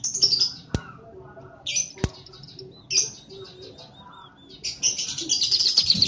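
Scaly-breasted munia singing: short, high-pitched twittering phrases, then a longer rapid chatter from about five seconds in. Two sharp clicks fall between the first phrases.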